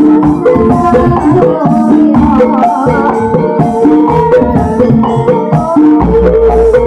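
Live ebeg (Javanese kuda kepang) dance accompaniment: hand drums beating a quick, steady rhythm under melodic instruments. A deep low note comes in near the end.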